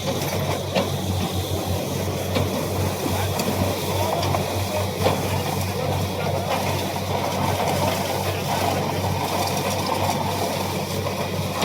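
Borewell drilling rig running steadily: a constant engine drone under a noisy hiss, with a few scattered clicks.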